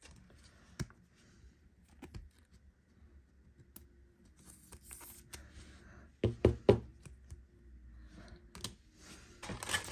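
Trading cards being handled on a table: soft slides and small clicks, then three quick knocks about six seconds in, the loudest sound, and a brief rustle near the end.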